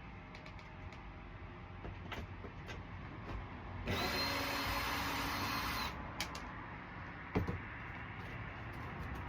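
Power drill running for about two seconds, starting about four seconds in, with a steady motor whine; a single sharp knock follows a little after seven seconds.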